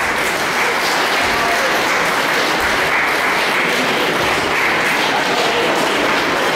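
Small crowd of spectators applauding steadily in a gym hall, a dense, even patter of clapping as the fighters break off and return to their corners at the end of a kickboxing round.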